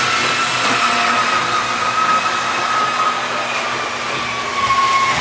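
Tri-ang Blue Pullman model train's electric motor running round the track with a steady high whine over a hiss, its pitch dipping slightly near the end. The whine is normal for this old Tri-ang set.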